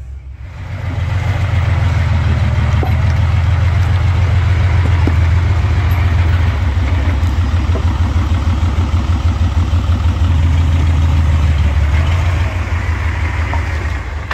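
Large diesel engine revving up and running hard with a deep, rapid throb, easing off near the end.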